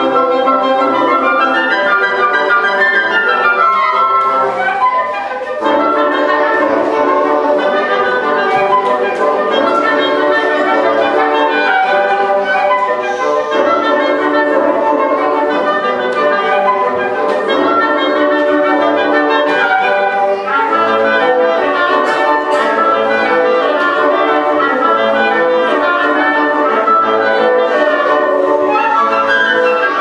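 Woodwind quintet of flute, clarinet, oboe, bassoon and French horn playing a lively arrangement of traditional mariachi music, with a brief pause about five seconds in.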